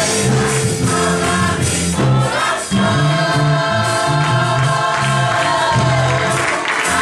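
Church choir singing a gospel worship song together, over instrumental backing with steady low notes.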